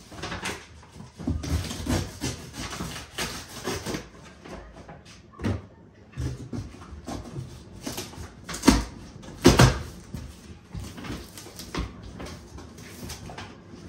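A boxed bicycle's cardboard packaging being pulled open and handled: scraping and rustling with scattered knocks, and two loud thumps less than a second apart about two-thirds of the way through.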